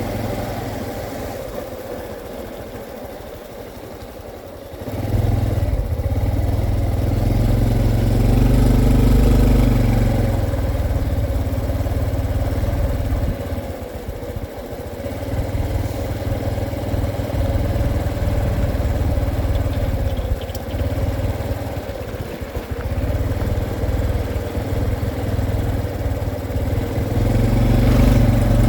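Honda CT125 motorcycle's single-cylinder engine running, quieter at first, then suddenly louder about five seconds in and staying loud, with a few brief dips in level.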